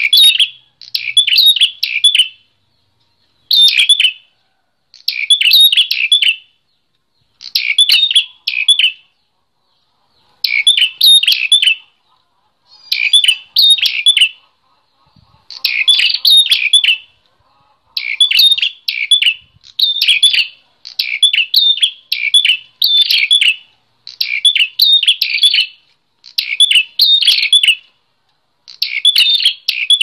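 Caged prenjak klawu singing in full voice, a run of short, loud phrases of rapid high chattering notes, one roughly every two seconds.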